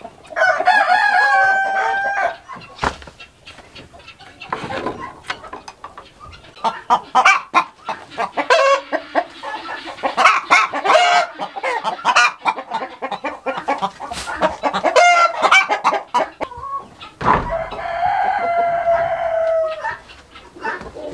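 Chickens in a coop: a rooster crows twice, once just after the start and again about seventeen seconds in, each crow a long held call. Between the crows there is a busy stretch of clucking and short calls.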